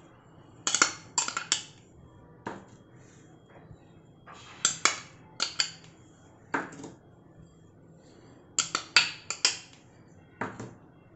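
A steel spoon and glass bowls clinking as chopped vegetables are scraped and tipped from small glass bowls into a glass mixing bowl. The clinks come in short quick clusters of two to four, with quiet pauses between.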